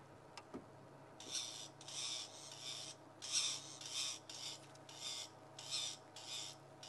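A bird giving short, harsh alarm calls over and over, starting about a second in at roughly one or two a second, a sign that it has spotted a possible predator in the vegetation.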